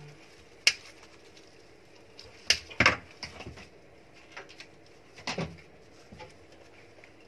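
Handling noise: a few scattered sharp knocks and clicks as objects are picked up and set down on a tabletop. The loudest come in a quick pair about three seconds in.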